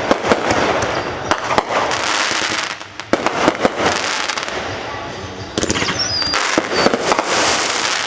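Fireworks display: rapid bangs and dense crackling from aerial shells, with a short falling whistle about six seconds in.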